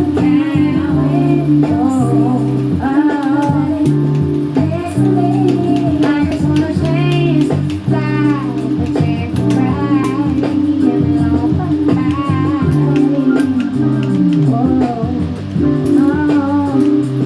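Music: a song with guitar and bass accompanying a singing voice.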